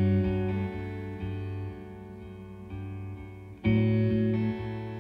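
Background instrumental music of ringing plucked-string chords. A loud chord sounds at the start and another about three-quarters of the way in, each fading away.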